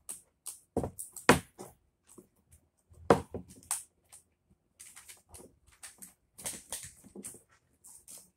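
Hands handling red vinyl wrap film over a plastic car interior trim piece: a string of short crinkles, rustles and small clicks, with two sharp knocks about one and three seconds in.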